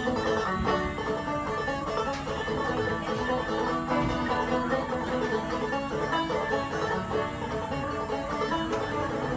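Bluegrass-style music with a rapidly picked banjo.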